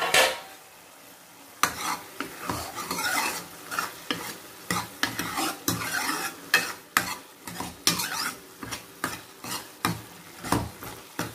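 A metal ladle stirs prawns in a steel kadai, scraping and clacking against the pan about twice a second over a soft sizzle from the cooking liquid. A loud clatter comes right at the start.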